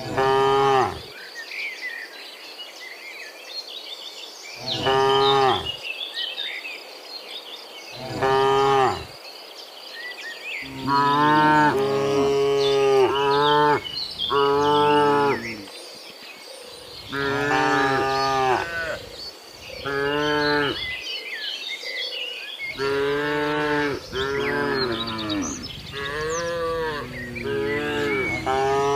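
Cattle mooing over and over: single long moos a few seconds apart at first, then from about a third of the way in several cows calling at once, their moos overlapping.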